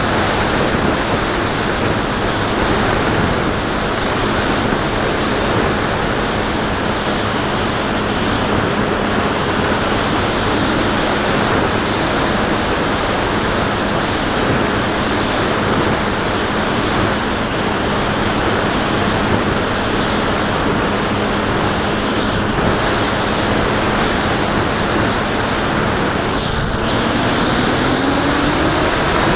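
Wind rushing over the on-board camera's microphone on a Bixler 2 foam RC plane in flight, under the steady hum of its brushless motor and 8x5 propeller. The motor's pitch rises over the last few seconds as it speeds up.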